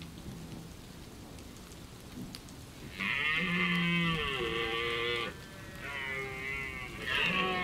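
Red deer stag roaring during the rut: a long, deep bellowing roar starts about three seconds in and drops in pitch near its end, followed by a weaker roar and then a third loud one. These are the rutting roars a stag uses to hold his harem of hinds.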